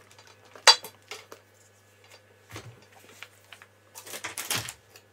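A Fluke handheld digital multimeter and its test leads being picked up and handled: one sharp clack about a second in, a few lighter clicks, then a cluster of clattering and rustling near the end.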